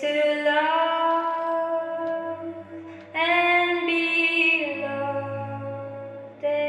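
Music: a female voice singing long held notes, with a new note starting about three seconds in and another near the end.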